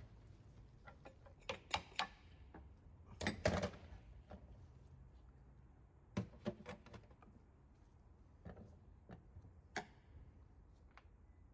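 Irregular hard clicks and knocks of tools and parts being handled on a workbench, a dozen or so scattered strikes with the loudest cluster about three and a half seconds in.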